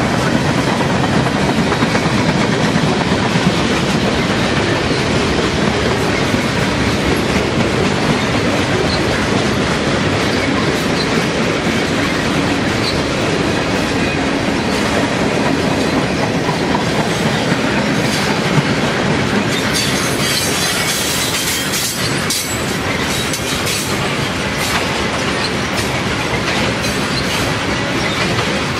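Freight cars of a long CN train, boxcars giving way to tank cars, rolling past steadily: a continuous wheel-on-rail rumble with clickety-clack over the rail joints. From about twenty seconds in, high-pitched wheel squeal joins the rumble.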